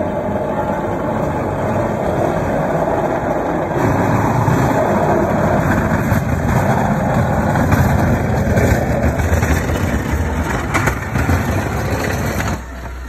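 Fiat Fullback pickup's diesel engine running under load as its Snoway plow blade pushes snow along the road. It makes a steady, noisy rumble that gets louder about four seconds in and stops abruptly near the end.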